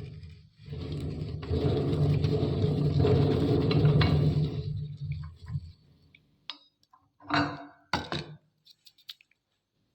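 Meat grinder running with a low hum while crunching wafer biscuits, for about five seconds, then stopping; a few short crackles follow.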